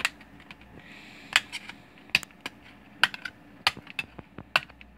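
Sharp plastic clicks and snaps, about a dozen at uneven intervals, as a laptop keyboard is pressed down and worked free of the ASUS X540SA's plastic top case, its plastic retaining stubs popping loose.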